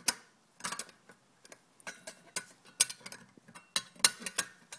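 Stainless steel parts of a meat tenderizer clicking and ticking against each other as a stainless plate is fitted under its bladed rollers: irregular light metal clicks, with a few sharper ones near the end.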